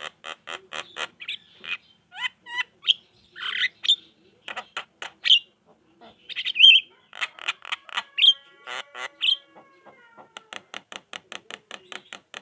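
Javan myna (jalak kebo) chattering song: fast runs of dry clicks interspersed with short whistles and harsh squawking notes.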